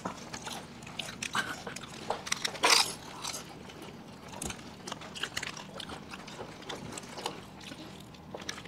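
Close-up eating sounds of several people biting and chewing crisp fuchka (puri shells topped with sev): scattered small crunches and mouth noises, with one louder bite about three seconds in.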